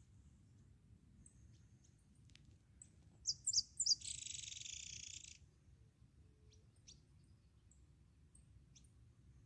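Small songbird calling: a cluster of loud high chirps about three seconds in, then a buzzy trill of about a second and a half, with faint high chips scattered around it.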